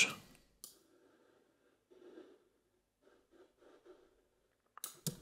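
Near silence: room tone, with one faint click about half a second in and a soft breath near the end.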